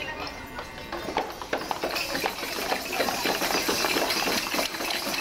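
Noise from a large crowd of children, full of scattered sharp taps and claps, growing louder about two seconds in.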